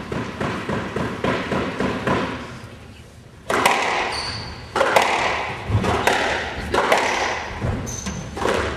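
Squash rally: about three and a half seconds in, a squash ball starts being struck by racquets and smacking off the court walls roughly once a second, a sharp crack each time, with brief high squeaks of court shoes on the hardwood floor.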